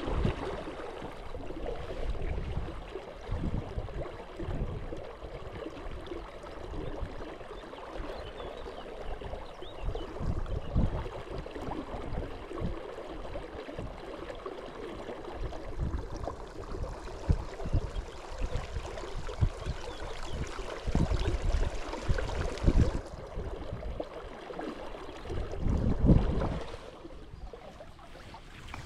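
Flowing river water, a steady rushing, with irregular gusts of wind buffeting the microphone.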